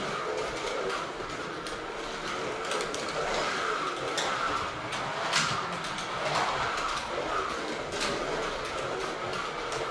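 Carrera Digital 1/32 slot cars running laps on plastic track: electric motors whining, the whine rising and falling with speed, over a steady rattle of the guide and wheels on the track, with sharp clicks now and then, the loudest about five seconds in.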